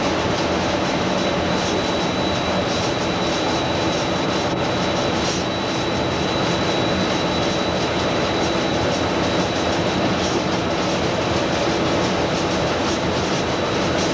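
Cab of a British Rail Class 47 diesel locomotive under way: the twin-bank V12 Sulzer engine's steady drone mixed with wheel and running noise, with a thin high whine running through it.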